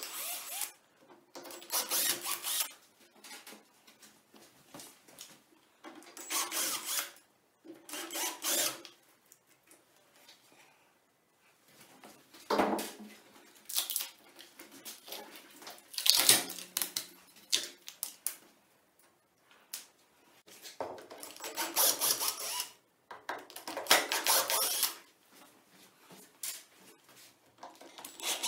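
Cordless drill-driver running in short bursts of about a second each, with pauses between, as it backs screws out of the wooden mold frame.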